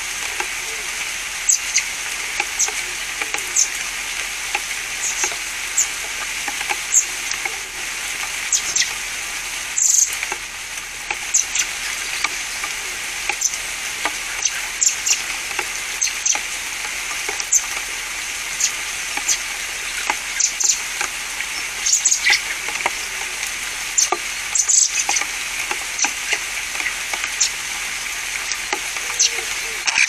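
Steady rain falling on garden shrubs and foliage, a constant hiss broken by frequent short, high ticks and drips.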